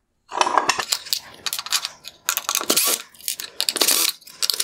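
Screwdriver backing the Phillips screws out of a headlight's metal projector housing while the part is handled: irregular metallic clinks, scrapes and rattles.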